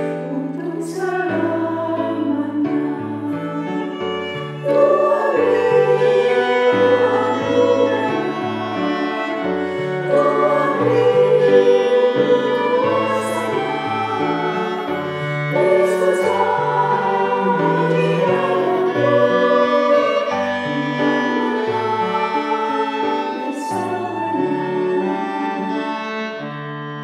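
Women's choir singing an Indonesian hymn, accompanied by cello and violin, growing louder about five seconds in. Near the end the voices stop and the strings carry on alone.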